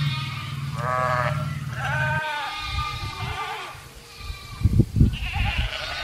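A herd of sheep and goats bleating, several wavering bleats one after another. A low steady hum stops about two seconds in, and a few low thumps come near the end.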